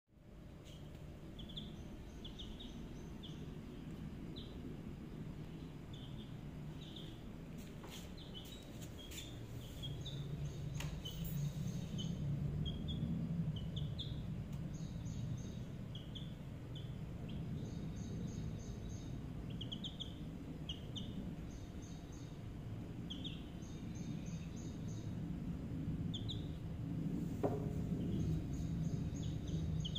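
Chicken chicks peeping in short, high chirps repeated on and off throughout, over a steady low background rumble.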